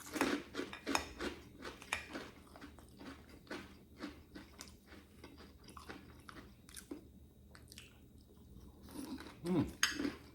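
Close-up crunching and chewing of salad with croutons, crisp bites coming thick and fast at first, then thinning out to slower chewing.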